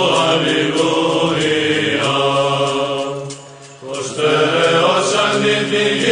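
Slow vocal chant with long held notes over a steady low tone. It drops away briefly a little after three seconds in, then resumes.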